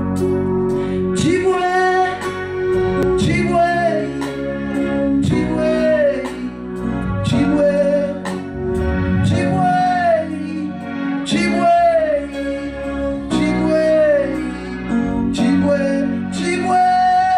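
Live gospel worship music: women singing a repeating melodic phrase over keyboard chords, with a steady percussion beat.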